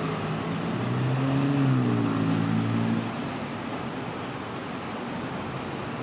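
Road traffic noise, with a motor vehicle's engine hum that swells about a second in and drops away at about three seconds as it passes.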